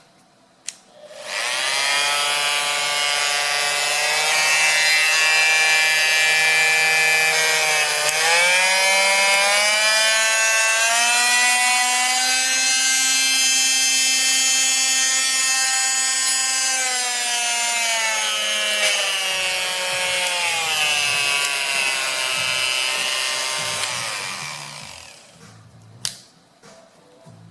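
ENERTWIST oscillating multi-tool running with a steady buzzing whine. Its pitch climbs about a third of the way in, holds, then eases back down before the motor winds down and stops. A click sounds just before it starts and another after it stops.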